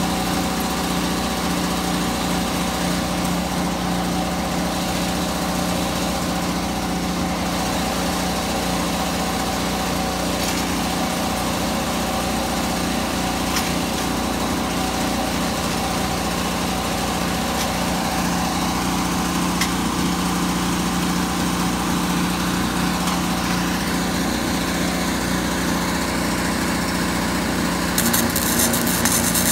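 Small petrol engine of a portable generator running steadily at constant speed. Near the end a welding arc starts crackling as a tack weld is struck.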